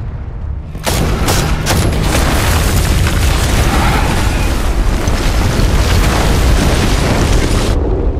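A fiery explosion sound effect: a low rumble, then a sudden blast about a second in with a few sharp cracks, and a long heavy rush of fire and falling debris that cuts off sharply near the end.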